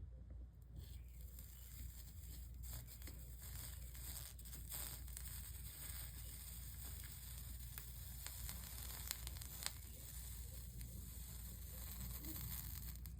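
Soldering iron melting solder along stained-glass seams, the flux sizzling faintly with many small crackles.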